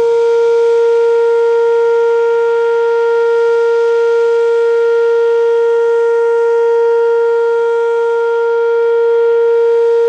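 Whelen WPS-2806 electronic tornado siren sounding a loud, steady tone that holds one pitch throughout, during its routine noon test.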